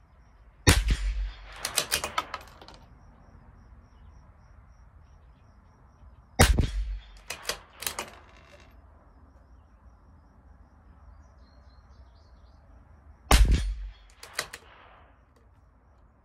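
Three shots from a CZ 457 LRP bolt-action .22 LR rimfire rifle, about six to seven seconds apart. Each shot is followed about a second later by a quick run of metallic clicks as the bolt is worked to eject the case and chamber the next round.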